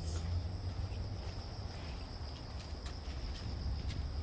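Outdoor ambience: a steady high-pitched insect drone with a low rumble on the microphone underneath and a few light ticks.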